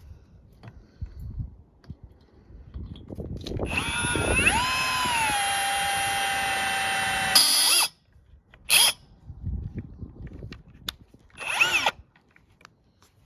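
Ryobi cordless hammer drill spinning up with a rising whine, running steadily for about three seconds and stopping near 8 seconds, then two short trigger bursts. The drill is set to screwdriver mode, not drill mode, so the bit is not cutting its hole.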